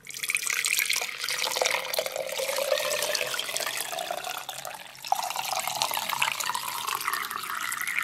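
Spiced milk poured through a stainless steel mesh strainer into a glass jug: a steady splashing stream whose pitch rises as the jug fills. It breaks off briefly about five seconds in, then starts again and rises once more.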